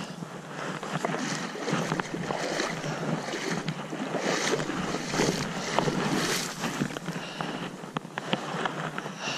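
Water sloshing and splashing close to the microphone, with wind on the microphone and many small irregular clicks and knocks of handling.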